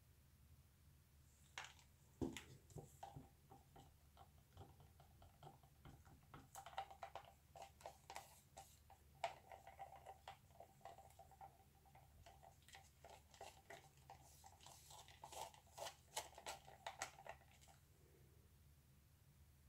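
Faint, irregular clicks, taps and light scrapes of paint cups and tools being handled on a plastic-covered worktable. They come in a scattered run that stops near the end, over a low steady hum.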